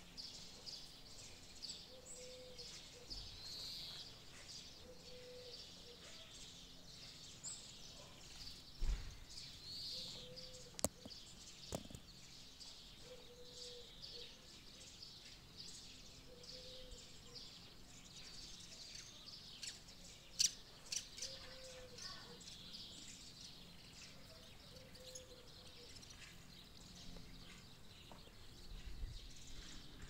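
Birds chirping and singing, fairly faint, with a short low note repeating every two to three seconds and a few sharp clicks.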